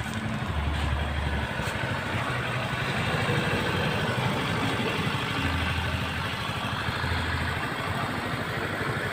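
Engine of a freshly overhauled Skygo Hero 125 motorcycle idling steadily.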